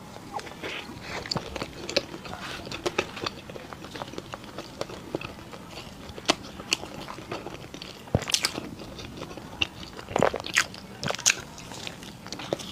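Close-miked biting into and chewing Chinese pastries: many short, sharp clicks and crackles throughout, with a few louder bites a little past the middle and near the end.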